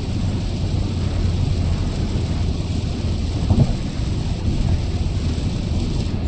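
Car driving in the rain: a steady low rumble of engine and road with a hiss of rain and wet tyres.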